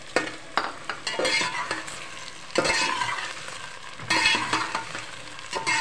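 Sliced onions and tomatoes sizzling in hot oil in an aluminium pot, stirred with a metal spoon that scrapes and knocks against the pot in repeated strokes about a second or so apart.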